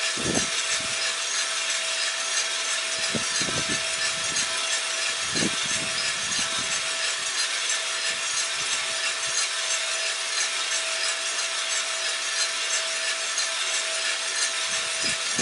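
Cormorant CR600 gas coffee roaster running mid-roast, just past dry end: a steady rasping rush of beans tumbling in the rotating drum and air from the fan, with a thin steady hum beneath it.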